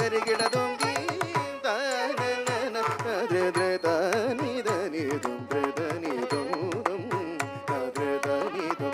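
Carnatic music accompanying a Bharatanatyam thillana: a continuous melody that bends and sways in ornamented phrases over a quick, steady run of drum strokes.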